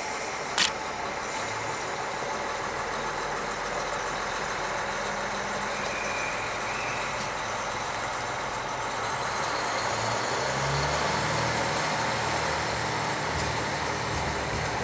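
Diesel engine of a JR Hokkaido KiHa 40 railcar running as the car pulls out, opening up about ten seconds in as it gets under way. A single sharp click sounds about half a second in.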